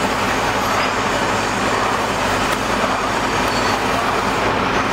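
Air compressor running steadily: an even hiss over a low hum.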